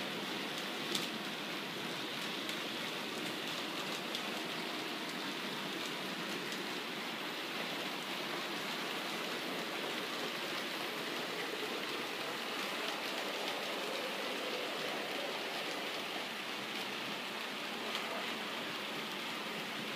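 OO gauge model trains running on the track: a steady rolling noise of metal wheels on the rails, with an occasional faint click.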